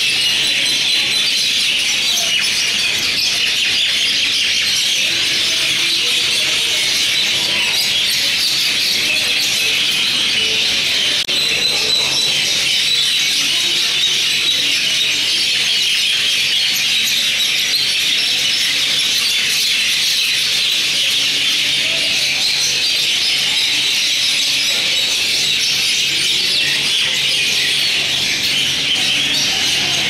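Mynas chattering in a dense, shrill, unbroken chorus that holds steady at the same level throughout.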